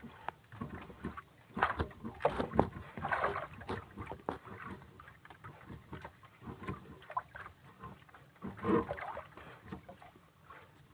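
Irregular knocks, scrapes and rustles of a fishing line being hauled up from deep water on a small boat.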